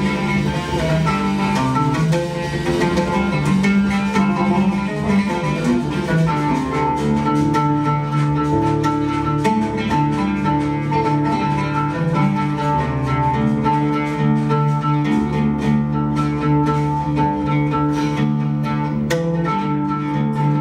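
Live instrumental music: an oud being plucked in quick runs over held lower notes.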